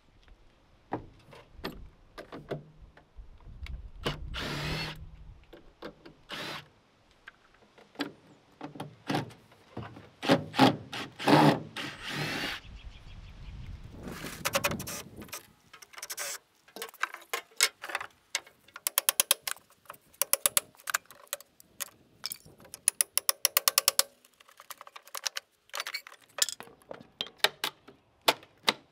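Power drill running in repeated short bursts. The bursts in the first half last a second or two each; those later on are a rapid rattle of clicks.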